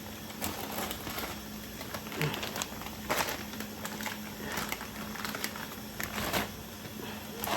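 Plastic food packages and containers being handled: irregular crinkling rustles and light clicks and knocks, over a faint steady hum.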